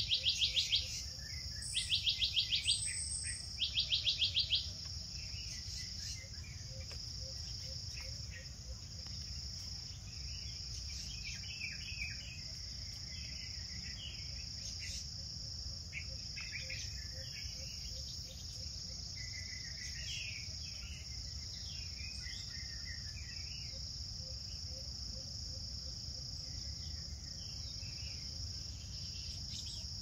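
Tropical forest insects and birds: a steady, high-pitched insect drone of crickets or similar insects all through. Three loud, rapidly pulsing trills of about a second each come in the first few seconds, and scattered short bird chirps follow from about a third of the way in.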